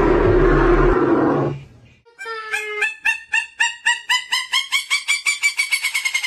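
A loud, rough noise for about a second and a half. After a short gap, a fowl-type bird gives a long run of repeated pitched calls that speed up as they go.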